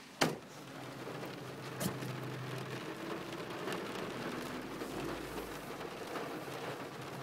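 Rain falling on a car's windshield and roof, heard from inside the cabin as a steady patter over a low, even hum. A sharp click sounds just after the start.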